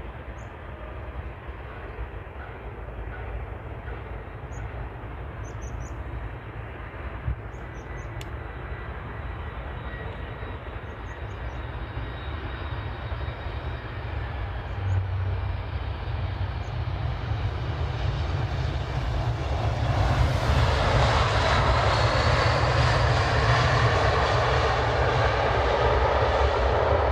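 Airbus A319 airliner coming in to land, its jet engine noise growing steadily louder as it approaches and loudest for the last several seconds.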